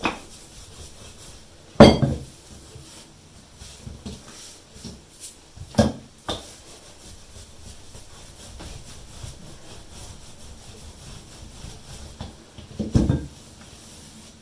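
Rolling pin working dough on a board: a few sharp knocks, the loudest about two seconds in, others near the middle and end, with faint rubbing between.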